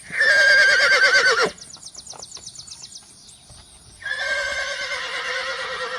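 Horse neighing twice: a loud, quavering whinny over about the first second and a half, then a second long, wavering neigh starting about four seconds in.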